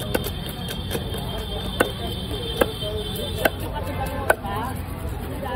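A long knife chopping a murrel (snakehead) fish crosswise into steaks on a wooden block. About five sharp chops, roughly one a second, as the blade goes through the fish and strikes the wood.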